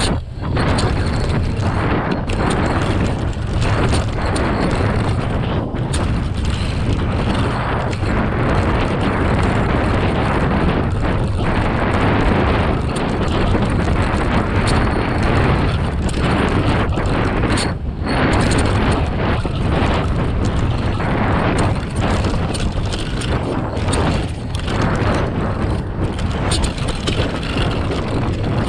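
Wind rushing over the microphone and tyres rolling fast over a loose gravel and dirt trail, with frequent knocks and rattles as a Specialized Kenevo Expert e-mountain bike goes over rough ground.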